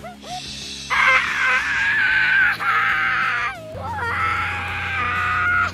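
A young child wailing in three long, high-pitched cries, one after another, over soft background music.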